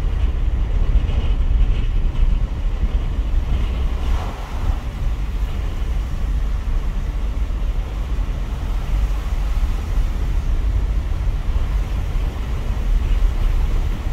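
Steady low wind rumble buffeting the microphone through a partly open car window, mixed with the rumble of the slowly moving car.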